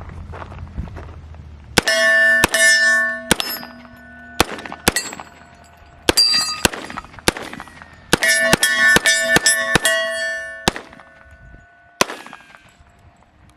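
LWRC SMG-45 .45 ACP carbine fired semi-automatically in quick strings of shots at steel targets, the plates clanging and ringing out after each run of hits.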